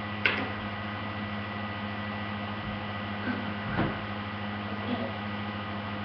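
Steady electrical mains hum, with a few light knocks and taps, among them an iPhone being set down on a wooden chair seat. The sharpest knock comes just after the start.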